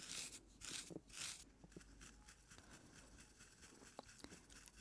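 Soft, scratchy strokes of a wooden wide-tooth comb and fingertips working through hair close to the microphone: three short strokes in the first second and a half, then fainter scratches and small ticks.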